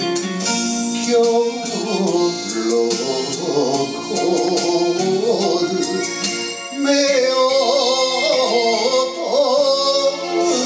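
A man singing a Japanese popular song into a microphone over a recorded backing track with a steady beat.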